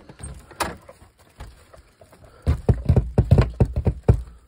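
Knocking on a door: a single sharp click about half a second in, then a rapid run of about ten loud knocks lasting under two seconds, starting about two and a half seconds in.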